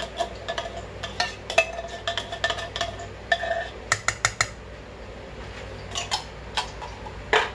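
A metal spoon scraping and knocking inside a tin can as the can of chipotle peppers in adobo is emptied into a pot. Quick clinks with a short ringing tone come thick and fast for the first four and a half seconds, then only a few scattered taps.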